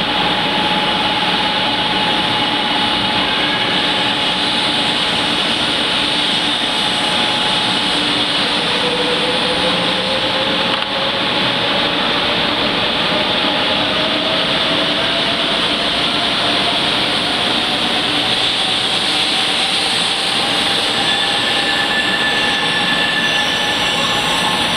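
Eight-car JR West 500 series shinkansen departing, its cars running past close by with a steady rush of running noise. About a third of the way in a thin whine starts and rises slowly in pitch as the train gathers speed.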